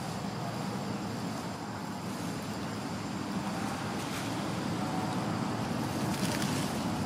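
Steady low background rumble, growing slightly louder toward the end.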